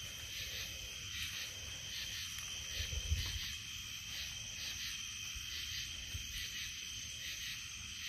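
Summer-night chorus of frogs: a dense, steady, high-pitched trilling with pulsed calls repeating a few times a second. A brief low rumble about three seconds in.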